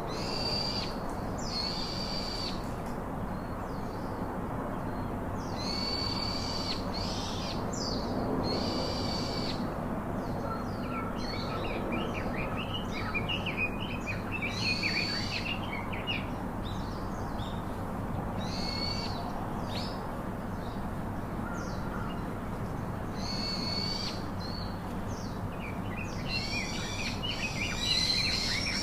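Birds calling: one kind gives repeated short, harsh calls every few seconds. Quick twittering from smaller birds comes in about halfway through and again near the end, over steady low background noise.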